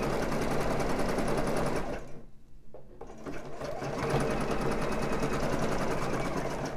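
Juki sewing machine stitching elastic onto the fabric band, running at an even speed, stopping for about a second partway through, then stitching again.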